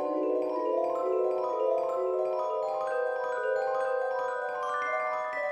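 Background music played on mallet percussion such as marimba or glockenspiel: a gentle run of ringing notes that steps gradually higher in pitch.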